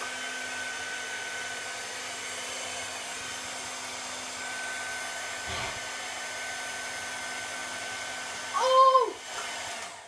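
Handheld hairdryer running steadily with a high whine, blowing air up through a cardboard tube to hold a ping pong ball aloft. About nine seconds in, a short loud vocal exclamation rises over it, and the dryer then winds down and cuts off at the end.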